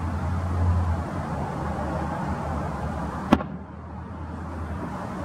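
A single sharp bang about three seconds in, the delayed report of an aerial firework shell bursting at a distance, over a steady low rumble.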